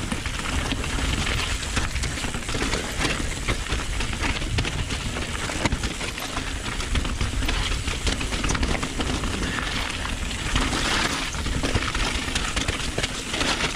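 Mountain bike descending a loose, rocky trail: tyres crunching over stones, with many quick sharp clicks and rattles from the bike, over a steady low rumble on the chin-mounted action camera.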